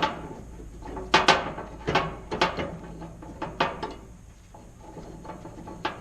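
A series of irregular knocks and clanks of hard objects being handled or set down, about ten in a few seconds, with a little ringing after each.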